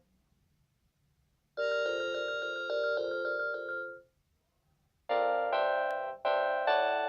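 Panasonic KX-TG6811 cordless phone playing its polyphonic electronic ringtones. About one and a half seconds in, a quick melodic ringtone plays for about two and a half seconds. After a second's pause, a different ringtone with choppy repeated chords starts.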